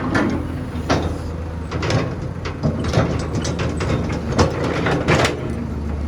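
Heavy diesel machinery running steadily, an excavator and dump truck at work, with about six irregular sharp clanks and crunches of dirt and metal over the engine.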